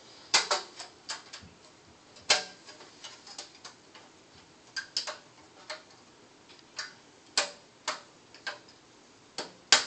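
Irregular sharp clicks and taps of a thin metal computer I/O shield being handled and fitted into the back of a PC case, a few louder snaps among lighter ticks.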